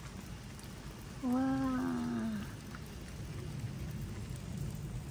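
Steady light rain, an even hiss over the wet road. About a second in, a voice gives a drawn-out exclamation of awe ("waa") lasting just over a second, sliding slightly down in pitch.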